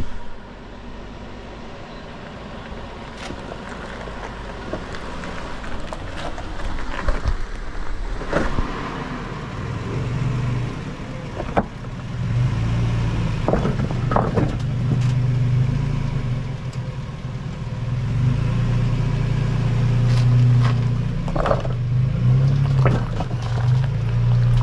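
Four-wheel-drive vehicle driving slowly over a rough dirt trail: the engine runs with a steady low drone that grows louder about ten seconds in, amid scattered knocks and rattles.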